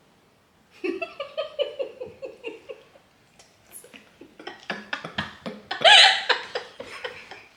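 People laughing: a quick run of laughter about a second in, then a louder burst of laughter around six seconds, with a few small clicks in between.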